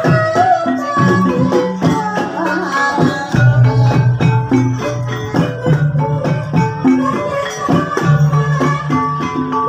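Javanese gamelan music accompanying an ebeg (kuda lumping) horse dance: quick, busy percussion strikes over sustained low notes, playing without a break.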